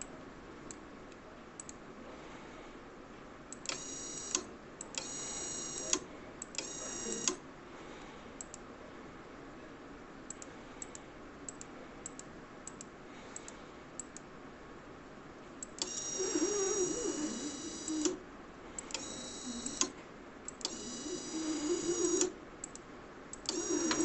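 Computer mouse clicks, and the conveyor trainer's small electric motor starting and stopping in about seven bursts of one to two seconds, each run with a high whine and a light rattle.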